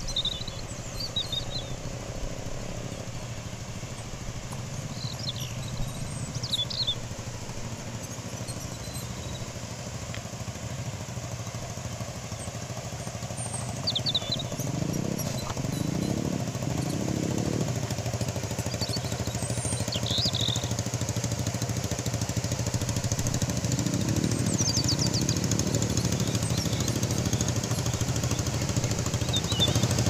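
A small engine running steadily, revving up twice, about fifteen seconds in and again near the end, with short bird chirps over it. A rushing hiss of falling water grows louder toward the end.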